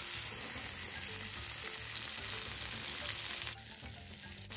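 Chopped tomatoes sizzling and frying in hot oil in a wok as they are tipped in from a wooden board, a steady hiss that dips briefly near the end.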